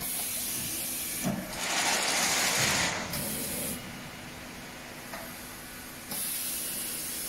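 Snack forming machine running, with repeated bursts of hissing; the loudest and broadest burst comes about a second and a half in and lasts about a second and a half, with a shorter, thinner hiss at the start, another just after three seconds, and one near the end.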